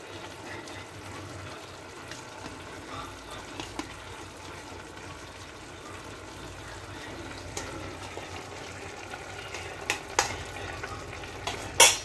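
Chicken and potatoes simmering in their own juices in a metal kadai on a gas flame, a steady bubbling sizzle. A few sharp taps of a spoon on the pan sound near the end.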